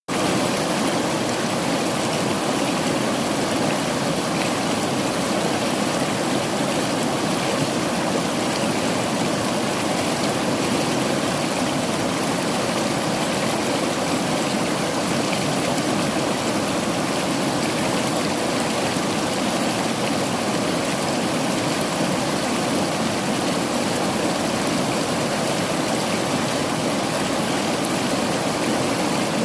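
River water flowing over rocks, a steady rushing with no change in level.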